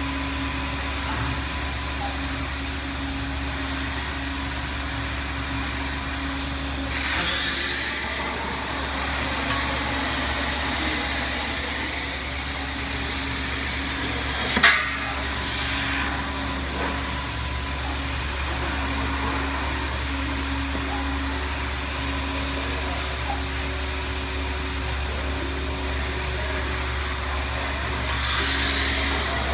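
Plasma cutter arc on a CNC tube cutter, a Hypertherm Powermax 85, cutting a steel tube. It starts suddenly with a loud hiss about seven seconds in and keeps hissing steadily, with a sharp crack about halfway through and another sudden start near the end. A steady machine hum runs underneath throughout.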